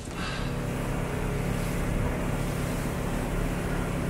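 Fishing boat's engine running steadily under way at speed, with the rush of wake water and wind.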